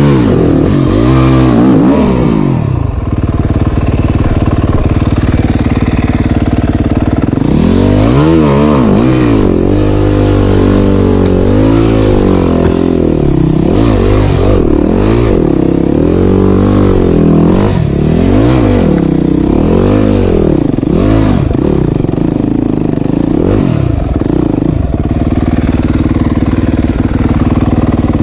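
Yamaha YZ250F four-stroke single-cylinder dirt bike engine revving up and down in repeated short bursts as it picks its way over rocks on a steep climb. It runs steadier and lower for a few seconds between the bursts and again near the end.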